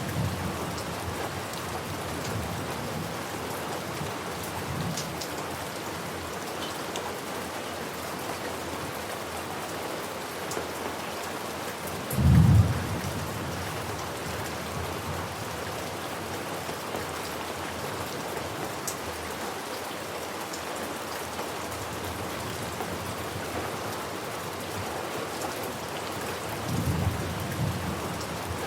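Steady rain falling, with thunder: one loud, short rumble a little under halfway through and fainter rumbles near the end.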